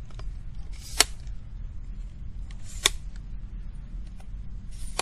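Zomei Z818 tripod's twist-lock leg sections being loosened by hand, giving three sharp clicks roughly two seconds apart, over a steady low rumble.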